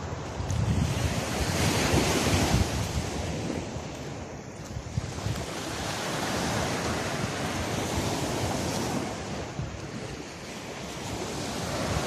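Small waves breaking and washing up a sandy beach, with wind buffeting the microphone in gusts that make the low rumble swell and fade.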